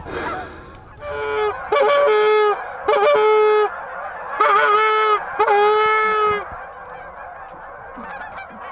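Goose honking: several loud, long drawn-out honks close by, between about one and six and a half seconds in, some with a short break up in pitch at the start. Fainter honking from a flock follows near the end.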